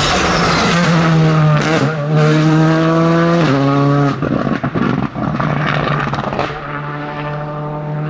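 Škoda Fabia R5 rally car's turbocharged four-cylinder engine pulling hard on a stage, its pitch dropping in steps twice at gear changes. About halfway through, the note breaks into a spell of sharp pops and cracks, then a steady engine note returns near the end.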